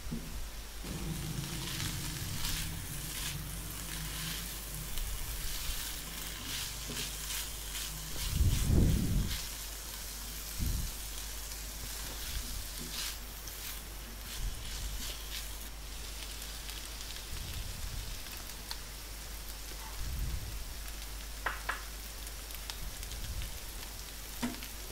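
Shredded cabbage, carrot and chicken sizzling in a non-stick wok while a wooden spatula stirs and scrapes them, with short scrapes throughout. A dull thump about nine seconds in is the loudest sound.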